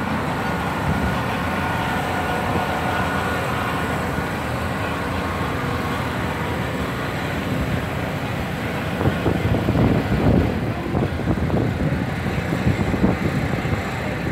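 Steady low mechanical rumble of food trucks' generators and engines running. It grows louder and more uneven for a few seconds past the middle.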